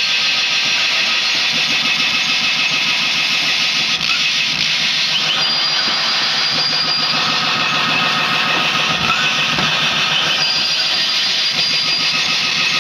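Live amplified noise music: a loud, unbroken wall of distorted, engine-like drone, with a short rising chirp repeating every few seconds.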